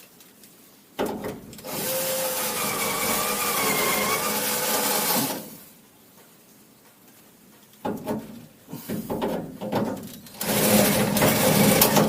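Electric drill running under load, its motor pitch wavering as it bites, in a run of about four seconds and a shorter run near the end, with clicks and knocks between. It is drilling out a rusted, seized door-lock screw.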